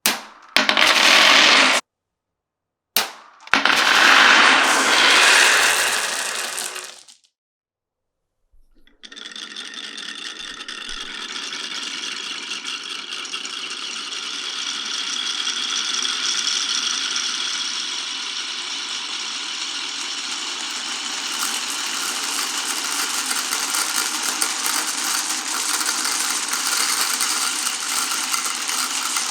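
Glass marbles rolling and clattering down a wooden marble run: two short loud bursts with silent gaps in the first seven seconds, then from about nine seconds a dense, continuous rattle of many marbles running at once.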